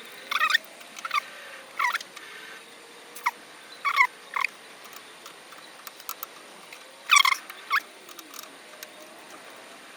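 A small animal's short, high squeaky chirps, about eight of them at irregular intervals, each a quick glide in pitch, over a faint steady background hum.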